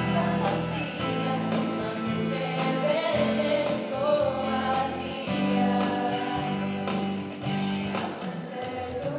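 A devotional song: singing over guitar accompaniment, running steadily.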